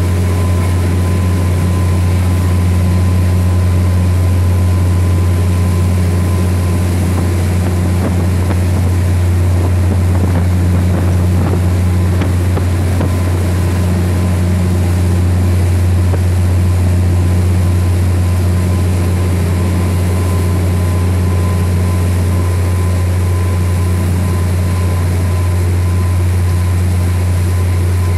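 A motorboat's engine running steadily at cruising speed, a loud, unchanging low drone, with water rushing past the hull.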